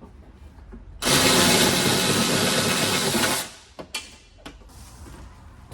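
A power tool with a 10mm socket runs in one steady burst of about two and a half seconds, backing out a door bolt, then stops; a few light clicks follow.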